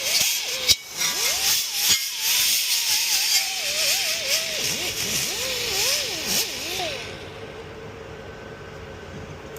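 Car on the move with a wavering squeal rising and falling in pitch and two sharp pops about one and two seconds in. The running noise drops away about seven seconds in, leaving a steady hum.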